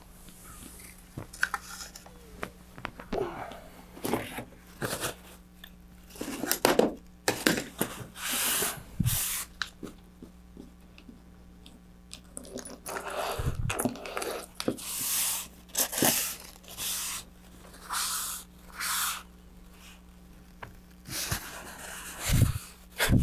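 Paper towel wiped and rubbed across a plastic cutting mat in repeated rasping strokes, cleaning up drilling dust, with a few dull knocks on the bench.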